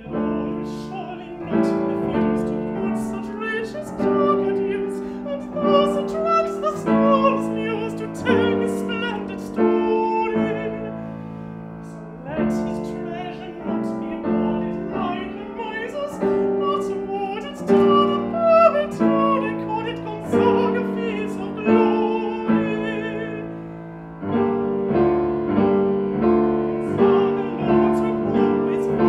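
Piano playing an accompaniment in repeated chords, with a singing voice over it at times.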